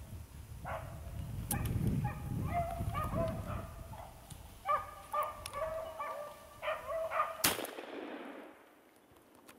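Pack of beagles baying while running a rabbit: several hounds' drawn-out bawls overlap and repeat. A single sharp bang comes about seven and a half seconds in, and then the baying stops.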